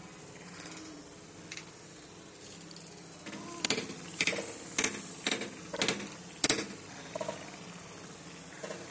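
Besan-battered potato bhajiyas deep-frying in hot oil, a steady sizzle. Through the middle comes a run of about six sharp clicks, roughly half a second apart.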